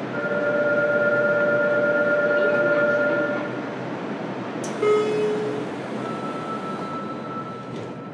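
JR Kyushu 303 series electric train heard from inside a motor car: a steady running rumble with a steady two-note electrical whine for the first three seconds or so. There is a sharp click about five seconds in, then a fainter steady whine.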